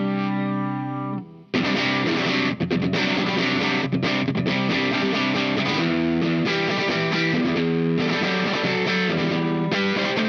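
Fender Elemental Jazzmaster electric guitar played through a Dazatronyx RAD, a RAT-style distortion pedal. A held distorted chord rings, is choked off about a second in, then dense distorted riffing continues.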